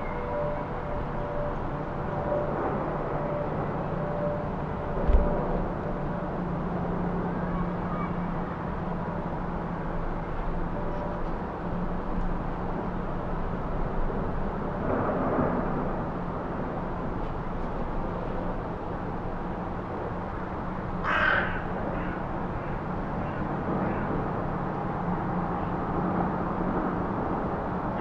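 Steady distant town hum with a low drone, a single dull thump about five seconds in, and a bird calling briefly about halfway through and again about three quarters of the way through.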